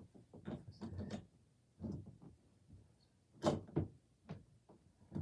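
A few scattered knocks and clunks of a door and its hardware being handled while it is fitted onto its hinges. The loudest knock comes about three and a half seconds in.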